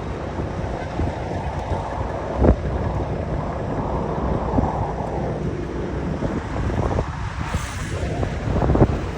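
A heavy truck's diesel engine pulling under load as it drives past, its exhaust rumbling, with wind buffeting the microphone. A brief hiss comes near the end.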